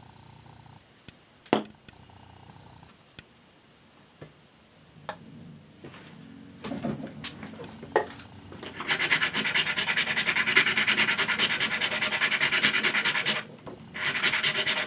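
Sandpaper rubbed rapidly back and forth by hand on a red plastic toy robot shell. The strokes come in two long runs with a brief pause between them, after a first few seconds of only light clicks and knocks from handling the parts.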